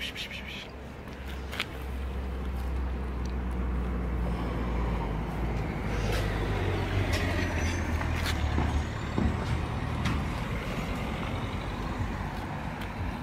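A heavy motor vehicle's engine rumbling nearby. It builds up over the first few seconds, holds steady, then slowly fades away.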